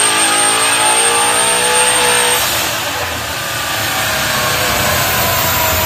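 Twin-turbocharged Ford Mustang engine pulling at full throttle on a chassis dyno, its note climbing with the revs; about two seconds in the note cuts off into a rush of air, and from there the engine pitch falls as the revs wind down.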